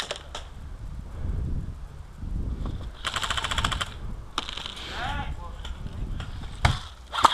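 Airsoft electric rifle (AEG) firing one short full-auto burst of rapid clacks lasting about a second, a few seconds in. Sharp single knocks follow near the end.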